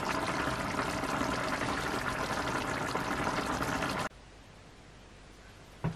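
Thick oat-and-chicken soup bubbling and spluttering in a pan, a dense crackle of popping bubbles that cuts off abruptly about four seconds in. A single short knock near the end.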